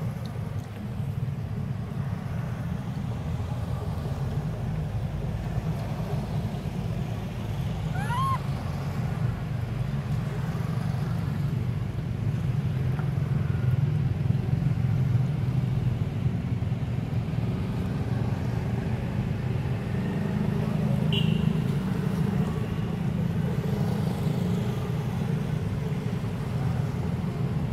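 Steady low outdoor rumble, with a short rising squeak about eight seconds in.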